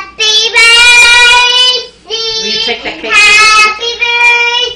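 A young girl singing loudly in long, drawn-out held notes: a long phrase, a short quieter one, then another long one, with brief breaths between.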